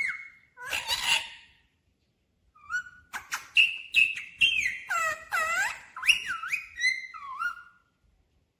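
Ringneck parrot whistling and calling: a string of short whistles that swoop up and down in pitch, one burst near the start, then after a pause of about a second a quick run of calls.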